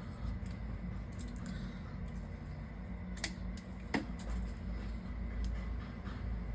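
Light handling clicks from a modular crimping tool and network cable: a few faint ticks and two sharper clicks about three and four seconds in, over a steady low hum.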